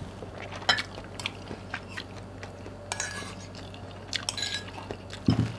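Metal spoon and fork clinking and scraping against ceramic bowls: a handful of separate clinks, a couple of them ringing briefly.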